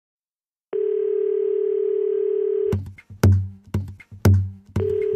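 Telephone dial tone used as the opening of a pop song track: after a brief silence a single steady tone holds for about two seconds. It then breaks into heavy kick-drum beats with sharp clicks, about two a second, and the tone returns near the end.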